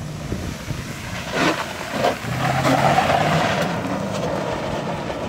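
A lifted full-size sedan's engine running hard under throttle, its pitch stepping up as it powers through the trail. A hiss of spray and flung dirt swells about a second and a half in and stays loud for a couple of seconds as the car slides on the loose surface.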